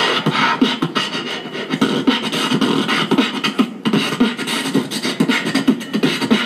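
Beatboxing into a handheld microphone, amplified through a portable speaker: a fast, unbroken run of vocal drum sounds, kicks, snares and hi-hat clicks.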